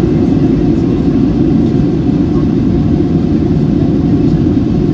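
Steady drone of an airliner's engines and rushing air heard inside the cabin, heavy in the low range with a faint steady hum above it.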